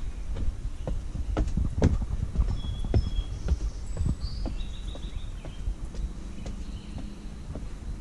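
Footsteps on wooden stairs and boardwalk planks: hollow knocks about two to three a second, louder in the first few seconds as the steps are climbed, then fainter on the level boardwalk.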